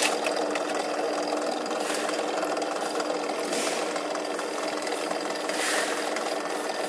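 Small 13 mm bench drill press running unloaded, its motor giving a steady hum of constant pitch, with a couple of brief metal scrapes as the steel table is moved on the column.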